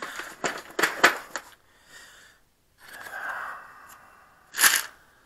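Clicks and rattles of small parts being handled while looking for a replacement valve cap, with a soft hiss in the middle and one sharper click near the end.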